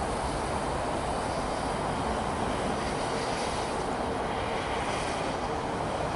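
Passenger train moving away along the track: a steady rumble of coach wheels running on the rails.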